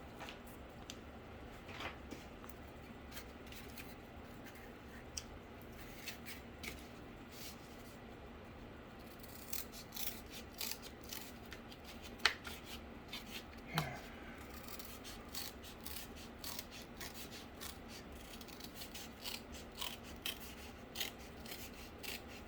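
Light clicks, taps and rubbing from hands working on cardboard pieces, over a faint steady hum. The clicks grow more frequent about halfway through, with two sharper ticks a little after that.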